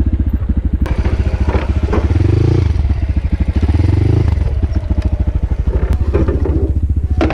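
Crossfire dirt bike engine running with a fast, even exhaust beat. It revs up briefly about two seconds in and again around four seconds.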